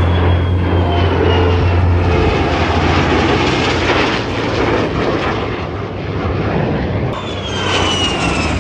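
Aircraft engine noise as a plane flies past, loud and noisy, with a high whine that falls in pitch as it passes, twice.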